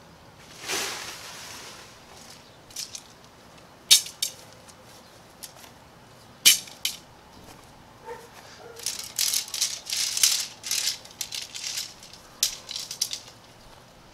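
Tent pole sections clicking and rattling against each other as they are handled and unfolded: single sharp clicks about four and six and a half seconds in, then a busy run of clattering from about nine seconds until near the end.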